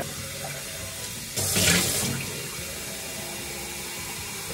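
Kitchen faucet running steadily into a glass vase held under the stream in a stainless-steel sink, rinsing it. About a second and a half in the splashing gets louder for half a second.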